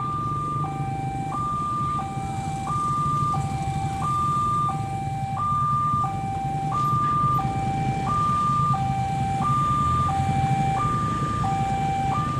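Railway level-crossing warning siren sounding a two-tone alarm, stepping between a low and a high tone about every two-thirds of a second, over a low steady rumble.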